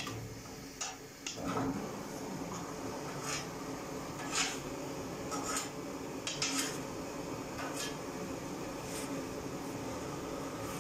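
Steady rushing of a gas-fired bread oven's burner, with a handful of light sharp clinks scattered through it.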